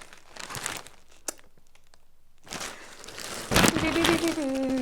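Packaging crinkling and rustling as a parcel is handled and opened, with a loud sharp rip or burst about three and a half seconds in. A long, drawn-out vocal sound follows near the end.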